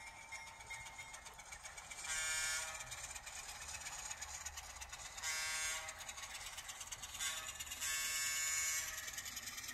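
HO scale Alco diesel switcher's DCC sound decoder playing its horn through the model's small onboard speaker: two long blasts, a short one and a final long one, the grade-crossing signal. A steady low engine sound and the running of the train lie beneath.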